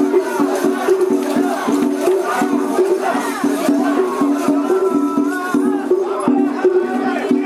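Children's voices chanting and shouting together as they carry a mikoshi, over festival music with a steady repeating rhythm and a rattling sound.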